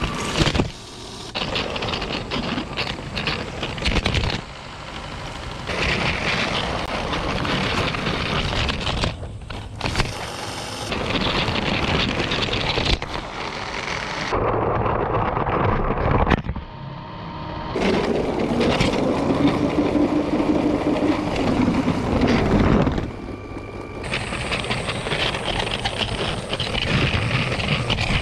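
A run of short clips, each starting and stopping abruptly, of steady rumbling and rattling ride noise from a camera carried on a LEGO train along its plastic track. In one clip a low hum rises and then falls away.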